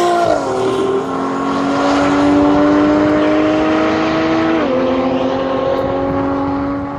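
BMW 130i's 3.0-litre straight-six accelerating hard away down a straight. Its note climbs slowly through each gear, with an upshift about a third of a second in and another about four and a half seconds in.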